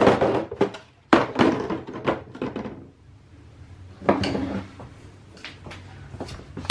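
Hard objects knocking and clattering as they are handled, in several short bursts of thunks with quiet gaps between, in a small room.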